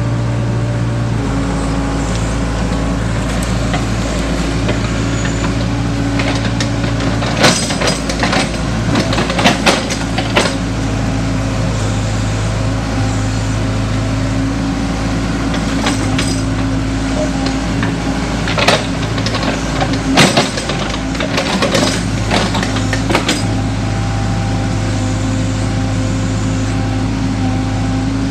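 Compact hydraulic excavator's diesel engine running steadily under load as the boom and bucket work. Sharp metallic clanks come in two clusters, about a third of the way in and again about two thirds of the way through.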